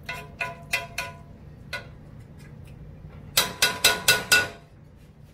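Metal spoon clinking against a skillet while food is stirred in it: a few scattered ringing clinks, then a quick run of about six louder taps near the end.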